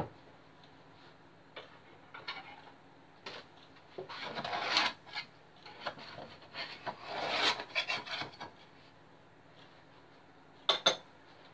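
A knife scraping around the inside of a metal loaf tin to loosen a baked cake, in two spells of scraping, the second longer. A sharp double click comes near the end.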